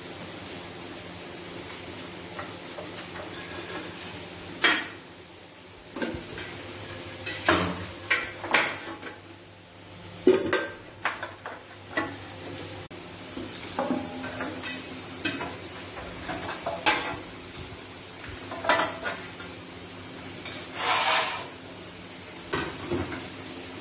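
Steel cooking pots and a metal spoon clanking, knocking and scraping at irregular intervals as pieces of meat are handled in them. A longer clatter comes near the end.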